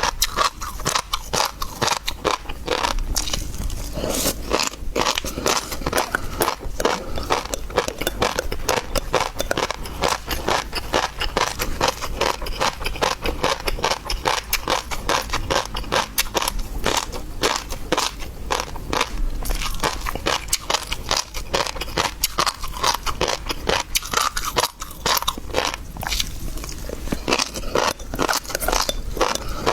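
Close-miked chewing and crunching of seafood, with dense crackling clicks of biting throughout.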